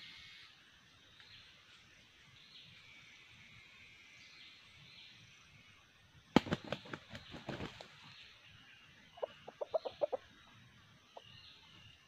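Junglefowl rooster clucking: a quick run of about seven short clucks a little after the middle, and a single cluck near the end. Before them, about six seconds in, comes a sudden flurry of sharp rustling noises, the loudest sound.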